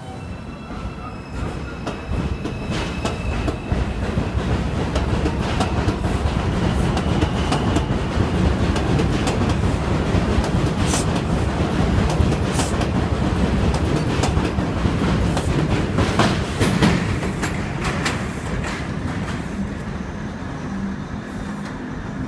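R142 subway train pulling out of the station, its wheels clattering over rail joints as the cars pass, building in level and then fading away near the end.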